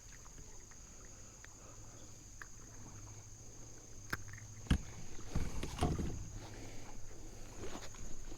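Handling noise in a kayak: a few sharp clicks and knocks from about four seconds in, then short rustling, splashy bursts as a freshly caught rock bass flaps while it is held.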